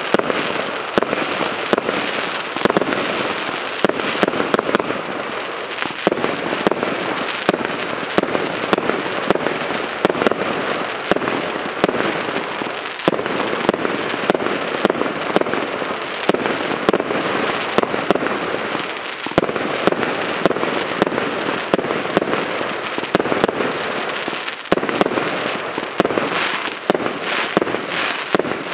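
200-shot consumer firework battery (OK Fireworks BAT20020F) firing: a dense, unbroken run of sharp shots and aerial bursts in quick succession.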